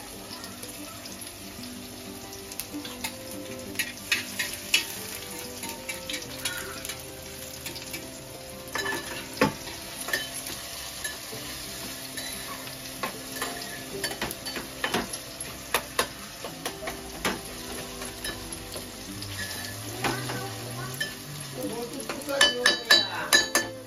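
Onions, tomatoes and chillies sizzling in oil in a metal pan on a gas stove, stirred with a spoon that clicks and scrapes against the pan. A louder burst of clatter near the end.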